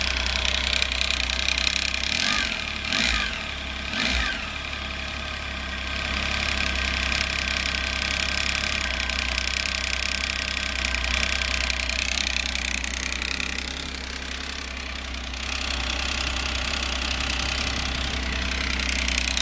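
Triumph Tiger 800 XCx's three-cylinder engine running at idle shortly after a start, not yet fully warm, with a steady high whine over the engine note that the owner calls a strange sound. The sound wavers briefly twice, about three and four seconds in.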